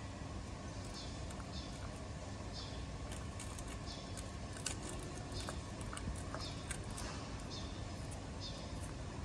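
A dog chewing and crunching meat and bone scraps from a metal bowl, with irregular sharp clicks that come thickest in the middle. Under it there is a steady low rumble and a short high chirp about once a second.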